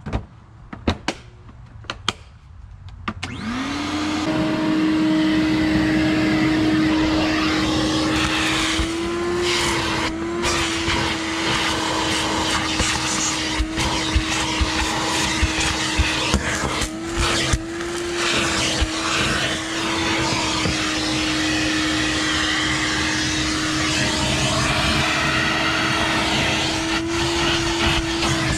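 Ridgid wet/dry shop vacuum: a few knocks and clicks as it is handled, then its motor starts about three seconds in and runs with a steady whine. The pitch lifts briefly a few times as the nozzle is worked over car floor carpet, with grit clicking up the hose.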